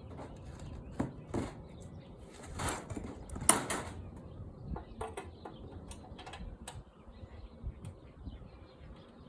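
Handling clatter at a small engine: scattered clicks and knocks, with two short rasping swishes about two and a half and three and a half seconds in. The engine does not run.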